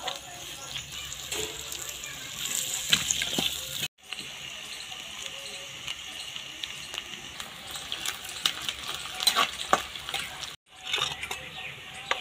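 Sliced onions frying in hot oil in a kadai: a steady sizzling hiss with scattered crackles and pops. The sound cuts out for an instant about four seconds in and again near the end.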